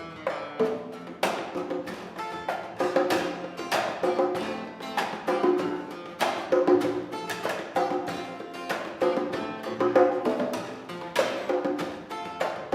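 Instrumental music with percussion: regular sharp strikes over sustained pitched notes.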